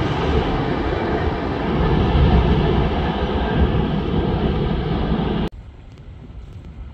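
Empty hooded steel-coil freight wagons (Shimmns type) rolling away over the rails in a steady rumble. It cuts off abruptly about five and a half seconds in, leaving faint open-air background.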